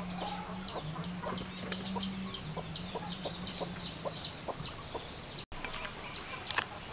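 Chicks peeping in a steady series of short falling chirps, about three a second, over a low steady hum. The chirping breaks off for an instant about five and a half seconds in, and a few light clinks of a metal spoon against a glass bowl follow near the end.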